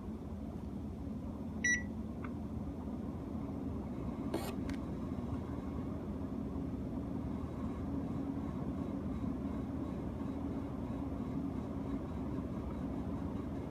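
Panasonic CS-GX226C air-conditioner indoor unit running with a steady low hum. This is the abnormal noise the owner reports from the unit, which came back even after its fan and motor were replaced. A short electronic beep sounds about two seconds in, and a brief rushing click follows a couple of seconds later.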